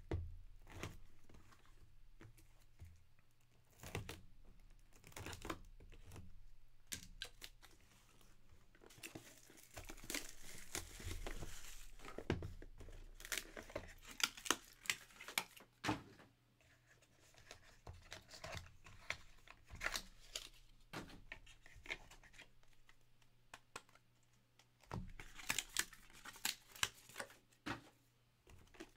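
Hands opening and handling a 2022 Leaf Trinity Football card box: cardboard knocking, plastic wrap crinkling and tearing, and a stack of cards rustling and snapping through the fingers, busiest in the middle stretch.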